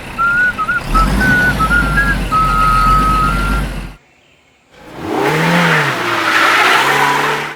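Cartoon vehicle sound effects: an engine rumble with a high, stepping tone over it, then a short gap and a second loud, noisy vehicle sound whose pitch swings up and down.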